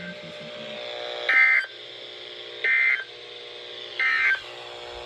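Three short bursts of NOAA Weather Radio SAME digital data, about 1.3 s apart, over a steady faint hum from the receiver. This is the end-of-message code that closes an alert broadcast.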